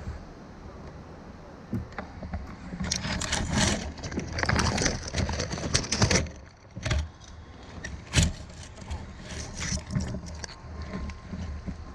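Leafy branches and twigs rustling and scraping against the camera and kayak, thickest in a rush of rustles and clicks from about three to six seconds in, with a single sharp knock about eight seconds in.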